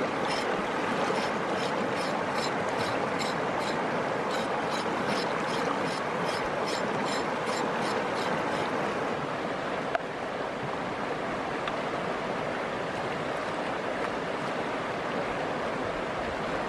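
Quick, even knife strokes against a green gourd, about three a second, over the steady rush of a flowing stream. The strokes stop about nine seconds in, leaving only the stream.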